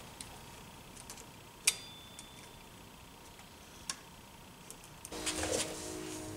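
Small metal clicks and taps of a pick working at a snap ring on a Motobecane AV7 moped engine, with one sharp click under two seconds in that rings briefly. Near the end comes a louder rustle of handling, over a faint steady hum.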